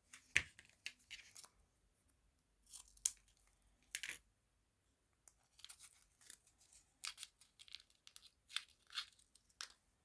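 An irregular series of short, close rustling and scratching noises with sharp clicks, the loudest just after the start and about four seconds in.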